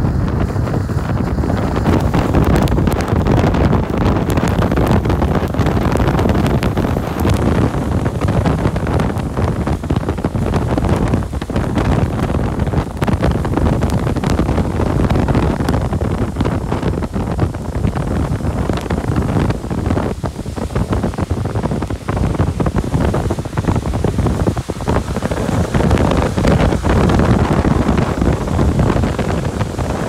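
A car driving at speed on a rain-soaked highway: a loud, steady rush of tyre and wind noise, with wind buffeting the microphone.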